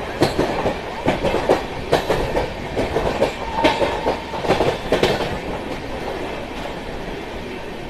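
Passenger train running on the rails, heard from aboard a coach: the wheels clatter over rail joints in quick, uneven clicks for about five seconds, then settle into a steady rumble.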